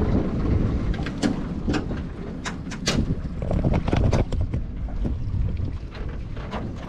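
A crab pot being hauled up out of the water: splashing and dripping with scattered sharp knocks, over a low wind rumble on the microphone.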